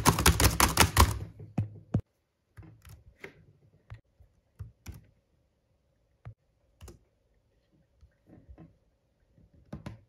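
Fast typing on an HP laptop keyboard for about two seconds, then scattered single clicks.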